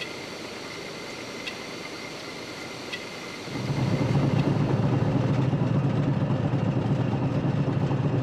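Steady hum of a century-old water turbine in a hydroelectric plant, with a thin high whine and a faint tick about every second and a half. About three and a half seconds in it gives way to the louder, steady rumble of a narrow-gauge train hauled by a class 1099 electric locomotive running along the track.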